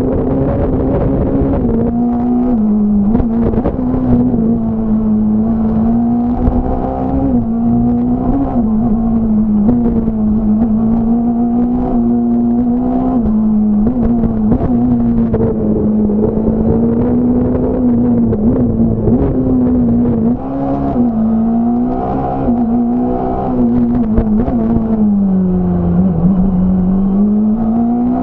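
Fiat Punto S1600 rally car's naturally aspirated four-cylinder engine at high revs, heard onboard at racing pace. The pitch stays high, rising and dipping every few seconds through gear changes and lifts, with a longer drop in revs near the end, over sharp clicks and knocks.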